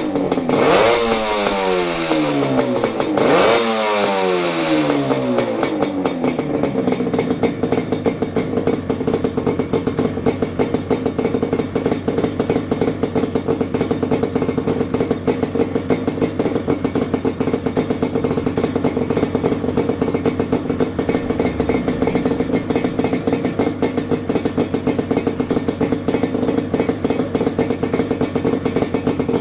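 Yamaha RZ250's two-stroke parallel twin, breathing through a Sugaya collector exhaust with the silencer fitted, blipped twice near the start with the pitch falling back after each, then settling to a steady idle about six seconds in.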